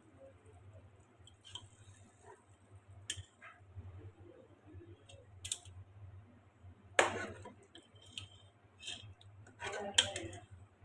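Kitchenware clinking and clicking in scattered light taps, with two louder knocks about seven and ten seconds in, over a steady low electrical hum.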